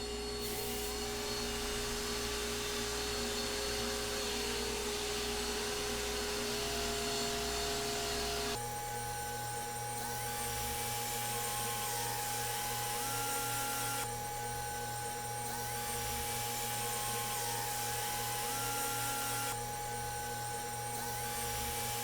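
Steady whine of a small electric motor, such as a power sander or shop vacuum, running during fine sanding of walnut pieces. Its tone shifts abruptly about eight seconds in and again a few times later.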